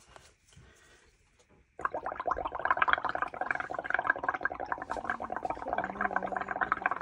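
Air blown through a straw into a tray of orange bubble-painting paint mixture: fast, continuous bubbling that starts suddenly about two seconds in.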